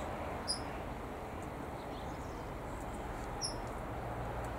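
Steady outdoor aviary background noise with a few short, high chirps from small birds, one about half a second in and another about three and a half seconds in.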